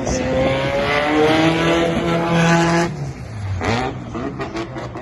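Drift car's engine held at high revs, its pitch climbing steadily, then dropping off sharply about three seconds in and going on in uneven revving.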